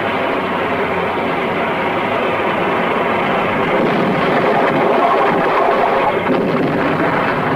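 Tank engines and tracks running in a steady, dense din.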